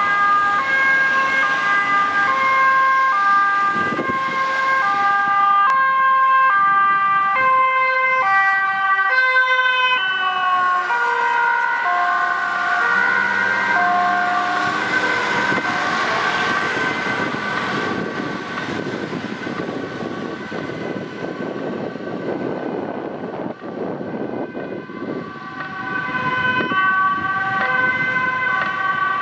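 Ambulance two-tone siren alternating between a high and a low note. About ten seconds in its notes shift lower. Road traffic noise takes over through the middle, then the siren comes back near the end.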